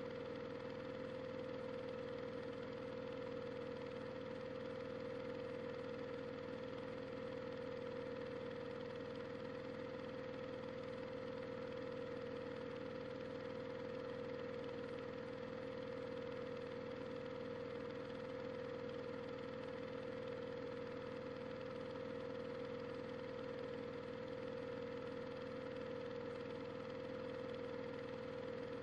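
Washing machine running with a steady motor hum, one strong even tone and no changes in speed.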